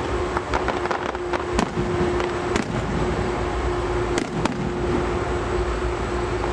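Fireworks going off: a quick run of crackling pops in the first second or so, then single bangs spaced a second or two apart. A steady low hum runs underneath.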